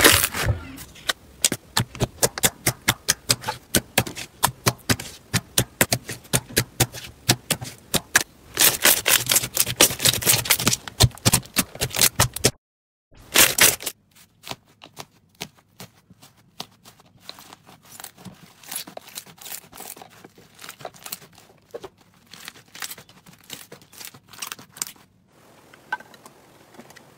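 Slime being squeezed and pressed by hand: dense, sharp crackles and pops for about twelve seconds. After a brief gap comes a run of softer, sparser clicks and pops, fading near the end.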